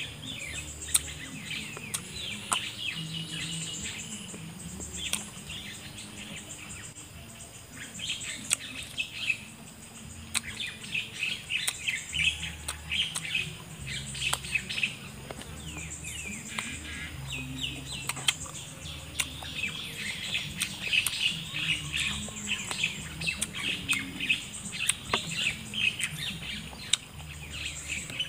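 Small birds chirping continually in the trees, with close-up chewing and mouth noises and scattered sharp clicks as raw fruit is eaten.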